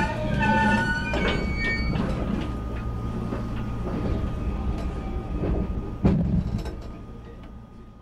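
Electric train running sound from a JR West 223 series 2000 with a Mitsubishi IGBT VVVF inverter (WPC13): the inverter's pitched tones glide in the first second, then give way to a steady low hum and a faint high whine with a few clicks. A sharp thud comes about six seconds in, and the sound fades out near the end.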